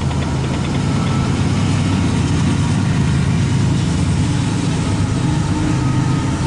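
Norfolk Southern diesel locomotives hauling a loaded coal train cross a bridge overhead, their engines running with a steady low drone.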